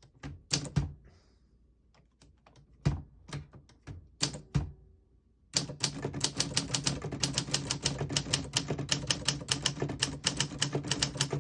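1956 Olympia SM3 manual portable typewriter: a few separate clacks, then from about halfway through a fast, even run of typing at several keystrokes a second.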